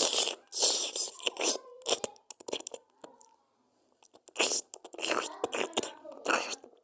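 Cat crunching and chewing food, in irregular clusters of crunches with short pauses between them.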